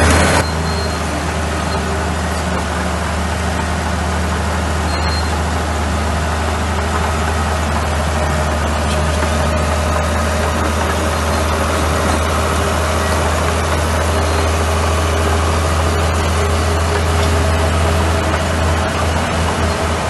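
Crawler bulldozer's diesel engine running steadily with a deep hum as it pushes a load of dirt and gravel.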